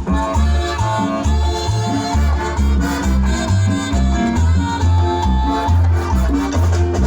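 Live tropical dance band playing an instrumental passage, with a pulsing bass line, brass and percussion including maracas.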